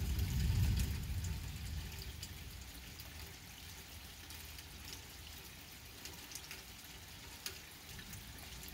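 Light rain falling on wet pavement: a steady hiss with scattered drips. A low rumble swells in the first second and fades out about two seconds in.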